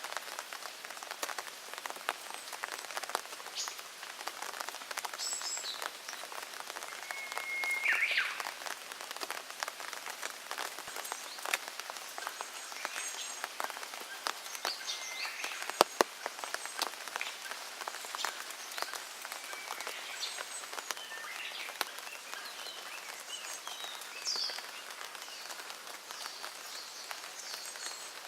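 Rain falling, heard as a steady hiss full of separate drop hits, one sharper hit about halfway through. Small birds give a few short chirps and whistles now and then.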